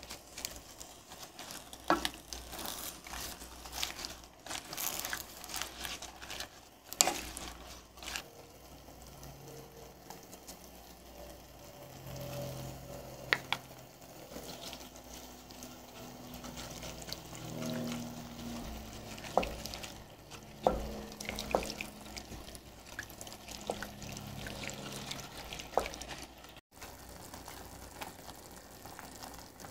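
A wooden spoon stirs collard greens in a stainless steel pot, the food frying lightly. The spoon knocks against the pot now and then, most often in the first few seconds.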